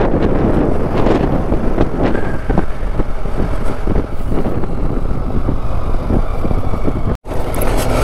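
Motorcycle on the move: wind rushing over the microphone mixed with engine and road noise, steady throughout. The sound drops out for a split second about seven seconds in.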